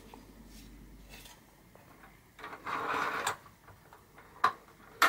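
Handling noises from a plastic ring light being fitted and adjusted by hand: a brief scraping rustle about two and a half seconds in, then two sharp clicks near the end.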